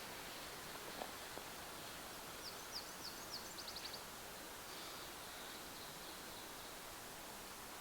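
Quiet wetland ambience with a small bird singing one short song of high, thin, down-slurred notes that speed up into a quick run near the middle, over a faint steady hiss and a couple of light footstep-like clicks early on.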